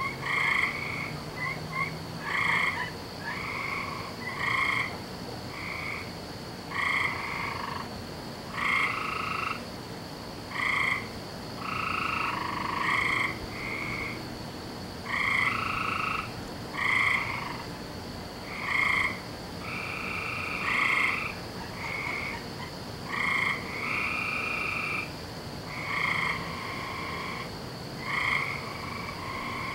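Frogs croaking in a chorus: short calls of about half a second, one following another roughly every second, several voices overlapping at times.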